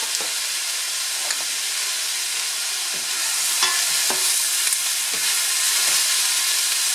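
Sliced cremini mushrooms and onion sizzling in a stainless steel sauté pan, with a steady hiss. From about three seconds in, a wooden spoon stirs them with light scraping clicks, and the sizzle gets brighter.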